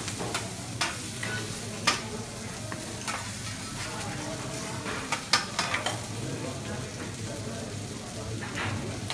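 Scallops frying and sizzling on a teppanyaki iron griddle, with sharp metal clicks and taps from the cook's spatulas on the hot plate every so often, a few in quick succession about five seconds in and again near the end.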